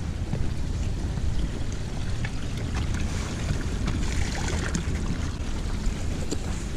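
Wind rumbling on the microphone, with scattered footsteps. About three seconds in, water pours from a wooden fountain's spouts and splashes into its trough for a couple of seconds.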